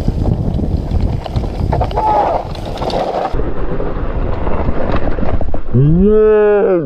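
Mountain bike descending a rocky dirt trail: wind buffeting the camera microphone over tyre rumble and frequent knocks and rattles from the bike. A rider's shout of "Yeah!" rises and falls near the end.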